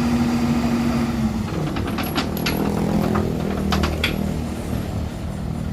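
A nearby engine running with a steady hum, its tone changing about a second and a half in, while metal parts clink sharply several times in the middle.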